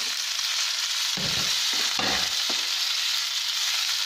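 Bathua cutlets sizzling in hot mustard oil with garlic, ginger and green chilli, a steady frying hiss, with a few dull knocks of a wooden spatula against the pan about one and two seconds in as the cutlets are pushed in and stirred.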